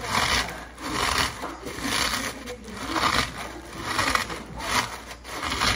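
Frosted Flakes cereal being crushed by hand inside a plastic zip-top bag: crunching and plastic crinkling in repeated squeezes, about two a second.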